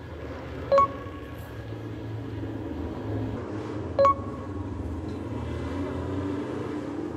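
Two identical short bell-like chimes about three seconds apart, an added editing sound effect, over a steady low outdoor rumble.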